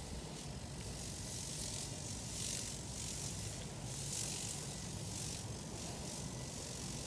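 Garden pesticide sprayer hissing in short bursts about once a second while it mists rose bushes, over a low steady hum.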